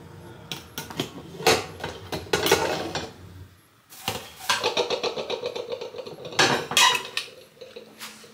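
Kitchen clatter of a pot and utensils: a string of knocks and scraping, busiest in two stretches in the first and second halves.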